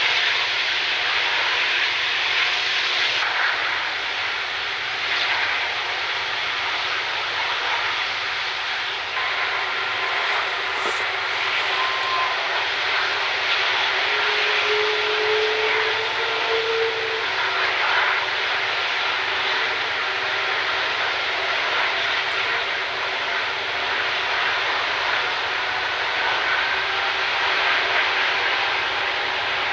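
Airbus A330 jet engine running steadily on the ground during an engine run-up test, an even, unbroken rushing noise.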